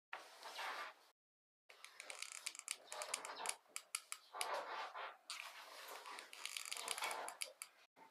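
Handheld hot glue gun in use: irregular clicks and crackling as the trigger is squeezed and glue is laid onto wooden popsicle sticks, with light handling noise of the sticks and paper.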